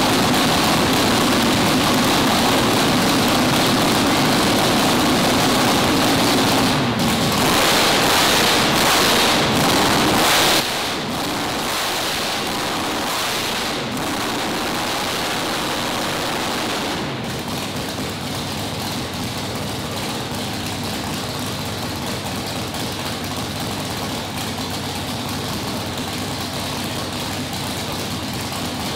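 Big nitrous drag-race engine running, a loud steady noise that grows louder for a few seconds, drops in level about ten seconds in, and drops again slightly around seventeen seconds.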